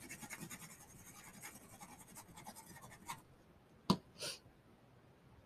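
Fine, rapid scratchy rubbing of a liquid glue bottle's tip across paper as glue is spread on a card, for about three seconds. Then a single sharp click and a brief rustle about four seconds in.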